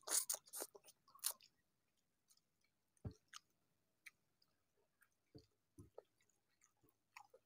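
A man chewing a mouthful of rice and curry eaten by hand, with a quick run of wet mouth clicks in the first second or so, then only a few faint, scattered clicks.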